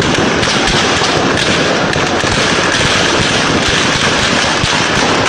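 Continuous loud crackling of dense gunfire, distorted by a phone microphone.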